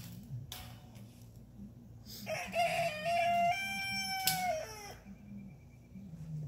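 A rooster crowing once: one long call lasting about two and a half seconds, starting a couple of seconds in and dropping in pitch at the end.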